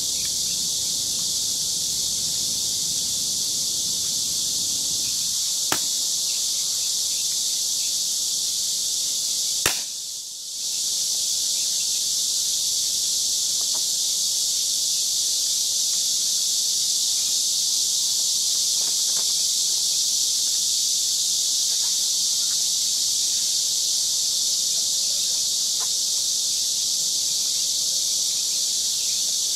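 A steady, high-pitched insect chorus drones throughout. About ten seconds in comes a single sharp crack of a revolver shot, with a fainter click about four seconds before it.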